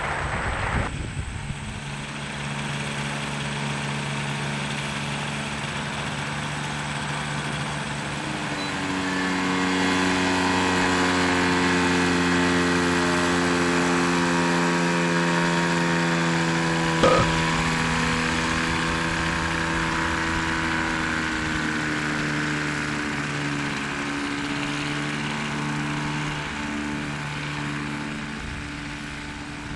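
Rotax 503 two-stroke twin aircraft engine running steadily, then revving up to a higher speed about a third of the way in and holding there before easing off a little and fading slightly near the end. One brief sharp click sounds about halfway through.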